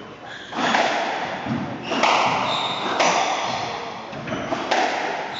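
Squash rally: the ball is struck by rackets and smacks off the court walls, about four loud hits roughly a second apart, each echoing through the hall.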